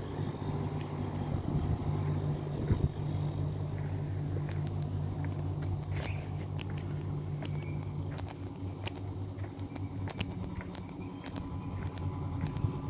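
Air conditioner unit running with a steady low hum; part of the hum drops away about eight seconds in, and light clicks and taps come and go in the second half.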